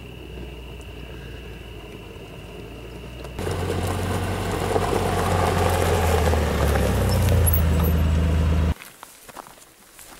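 A vehicle's engine running with a steady low hum that gets suddenly louder about a third of the way in, then cuts off abruptly near the end, leaving faint scattered rustles and steps.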